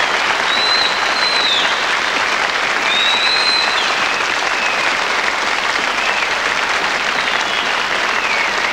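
Audience applauding steadily, with several long, high whistles over the clapping that drop in pitch as they end.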